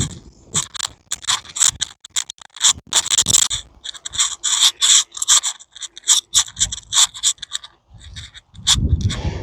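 Scratchy scraping and rubbing in quick, irregular strokes, with deeper rumbling swells about two-thirds of the way in and again near the end.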